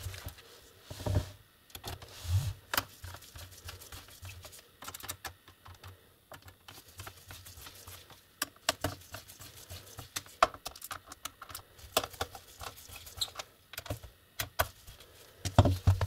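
Irregular plastic clicks and taps of a laptop's bottom case being handled, with a screwdriver on its screws and a hand pressing the case down. A few heavier knocks, the loudest near the end.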